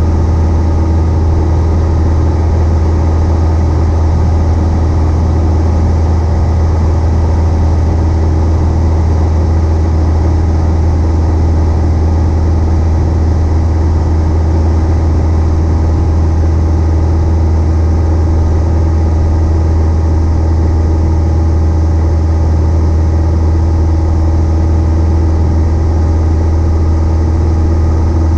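Single-engine light airplane's piston engine and propeller running steadily, a constant low hum heard from inside the cockpit.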